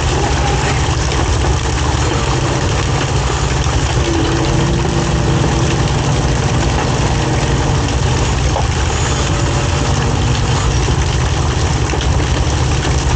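Fishing boat's engine running steadily, a low, even drone.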